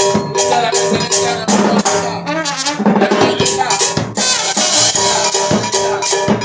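Dance band playing: a steady drum-kit beat, about three strikes a second, under held brass notes.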